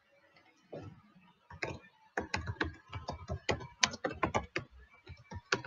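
Computer keyboard typing: a run of irregular key clicks, a few at first about a second in, then coming quickly and steadily from about two seconds in.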